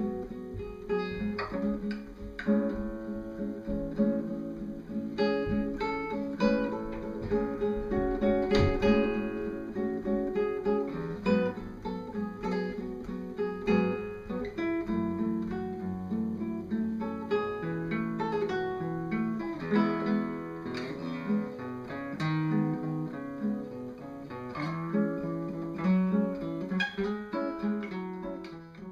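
Solo classical guitar playing, plucked melody notes over low bass notes.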